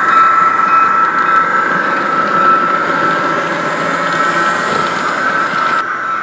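Model passenger train rolling past on layout track: a steady whine over an even rumble of wheels on rail.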